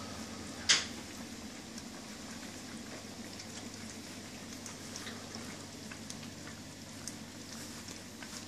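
A litter of 20-day-old German Shepherd puppies eating soft puppy food from a stainless steel feeding pan: a steady patter of small wet lapping and chewing noises, with one sharper click about a second in.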